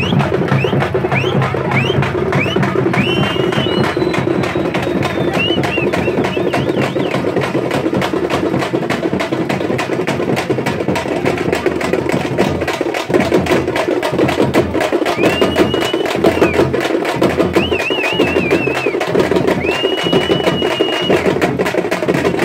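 Loud, fast percussion-led music of dense, sharp drum strikes. High whistles cut in over it: a string of short rising ones in the first few seconds, and longer held ones near the end.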